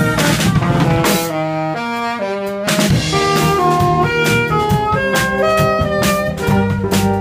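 Live jazz: a saxophone plays a melodic line over a drum kit with cymbal strokes, and a trumpet joins it near the start. The cymbals drop out briefly about a second in.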